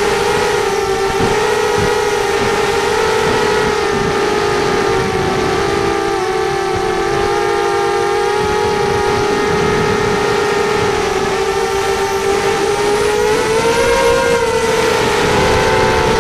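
FPV racing quadcopter's electric motors and propellers whining steadily, several close tones from the different motors drifting slightly up and down in pitch with the throttle and rising a little near the end.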